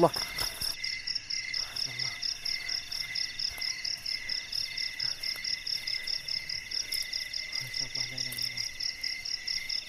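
Night insects, crickets among them, calling steadily in a tropical forest: several high shrill trills layered together, one pulsing at a fast, even rate.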